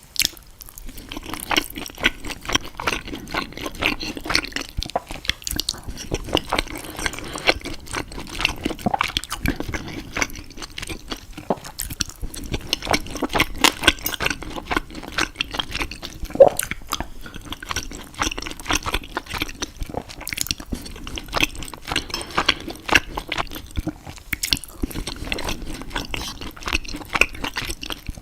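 A person chewing food close to the microphone, a wet mouthful made up of many quick, irregular clicks and smacks that go on throughout. About halfway through there is one brief pitched mouth sound.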